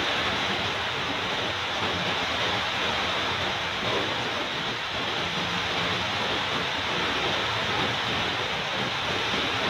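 Steady, even rushing noise with no break.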